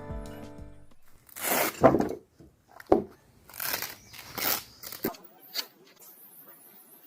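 A string of short rustling, crinkling handling noises with a sharp knock about three seconds in, as background music fades out.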